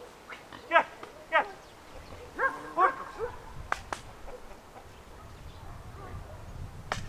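A dog barking, a few short sharp barks that drop in pitch, then a run of yelps about two and a half seconds in. Two sharp knocks follow just before four seconds in and another near the end.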